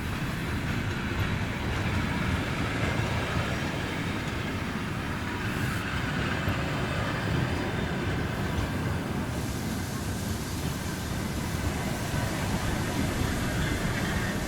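ChME3 diesel-electric shunting locomotive hauling railway cars away, a steady low rumble.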